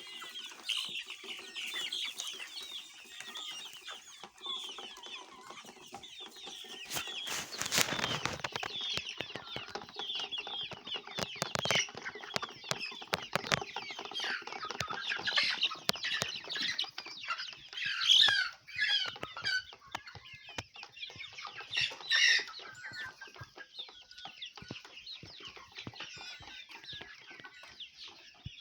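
A flock of country-breed (gavran) chickens clucking and calling together in a steady, overlapping chatter, with a few louder calls near the end. A short rushing noise cuts across about eight seconds in.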